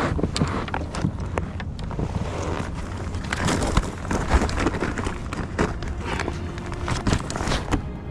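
Wind buffeting the microphone in a steady low rumble, with scattered short knocks and clicks throughout.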